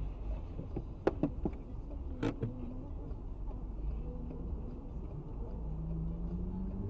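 Low, steady rumble of an idling car and passing city traffic heard from inside a stopped car. A few sharp clicks come between about one and two and a half seconds in.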